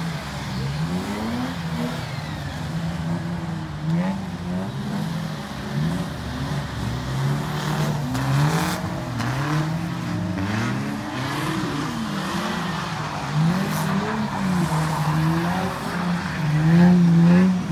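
Diesel engine of a rear-wheel-drive Ford Transit Mk6 van revving up and down over and over as it is driven sideways round the track, loudest near the end.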